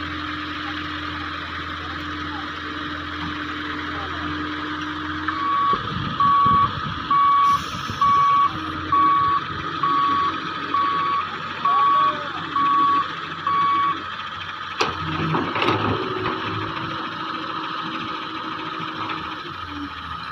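Wheeled excavator's diesel engine running steadily, with its travel alarm sounding about ten even beeps, a little under one a second, from about six seconds in to about fourteen. A sharp knock comes near fifteen seconds.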